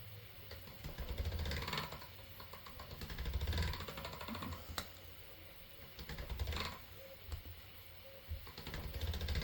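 Light clicks and knocks of polymer clay blocks and tools being handled on a tabletop, in several short bursts a couple of seconds apart.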